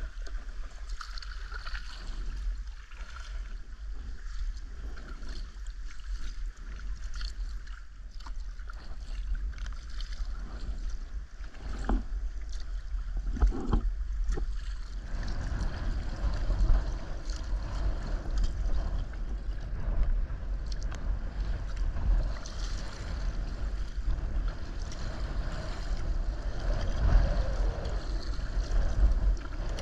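Sea kayak paddling: paddle strokes and water sloshing and splashing against the hull, over a steady low rumble. About halfway through, the water noise turns fuller and louder as the bow pushes through choppier water.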